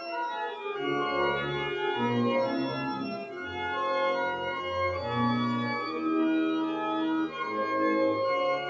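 Church pipe organ playing held chords over a moving bass line, the notes changing every half second or so.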